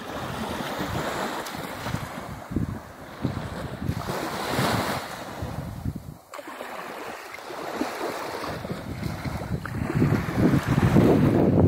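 Small waves washing up onto a sandy beach, with wind buffeting the microphone; the wind noise grows stronger near the end.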